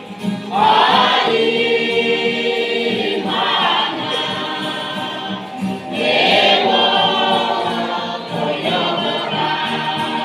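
A youth choir singing a gospel hymn in the Mee language, holding long notes that swell about half a second in and again around six seconds.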